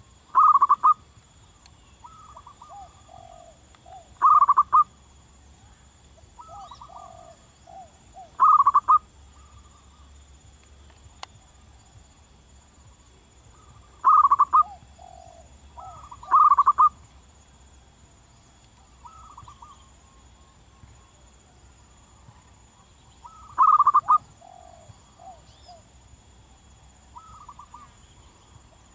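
Zebra doves (perkutut) cooing. One bird gives six loud, short phrases of rapid notes at irregular intervals, and a fainter one answers in between with phrases of quick, falling notes.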